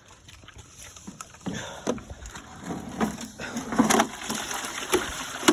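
Water sloshing and splashing from a handled bucket, with irregular knocks and clatter starting about a second and a half in.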